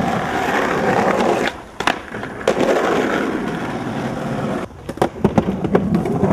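Skateboard wheels rolling over concrete, broken twice by sharp clacks of a board hitting the ground: once about two seconds in and several times about five seconds in.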